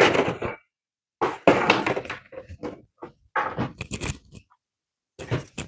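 A cardboard box and its packaging being handled: several short bursts of rustling and knocking, with quiet gaps between them.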